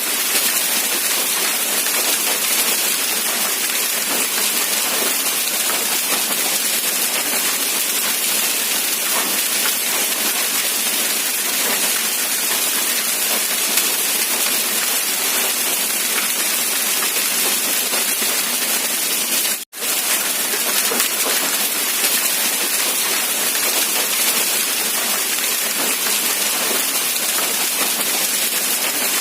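Steady rain falling, a dense even hiss with little low rumble. It is broken once by a momentary dropout to silence about two-thirds of the way through, like a splice in the recording.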